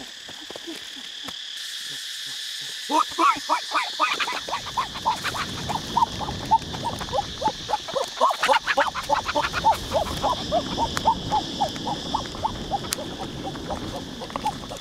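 A quick run of short animal calls, several a second, starting about three seconds in, over a steady high insect drone. A low rumble and occasional knocks run underneath.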